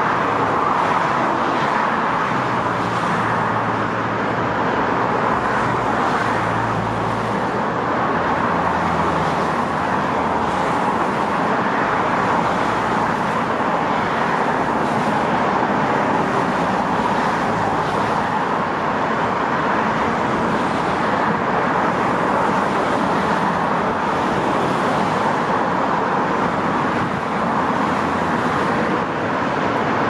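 Steady, dense city road traffic: a continuous wash of tyre and engine noise. A low engine hum rises out of it for several seconds near the start.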